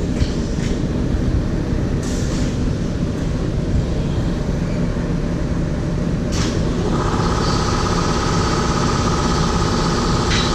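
Steady machine hum of a running M&R Gauntlet III automatic screen-printing press and the shop equipment around it, with a couple of light clicks. About seven seconds in, a steady higher-pitched whine joins the hum.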